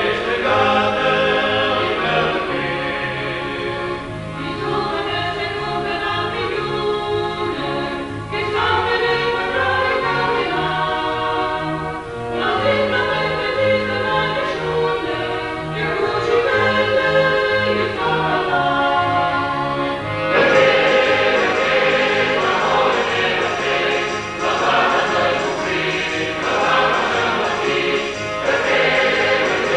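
Background music: a choir singing slow, sustained phrases over a moving bass line, the phrases breaking about every four seconds. It grows fuller and louder about two-thirds of the way in.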